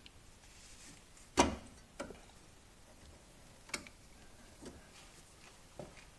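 Metal clicks and taps of circlip pliers working a snap ring onto a new lower ball joint, without seating it. One sharp click about a second and a half in, then a few lighter ticks spread out.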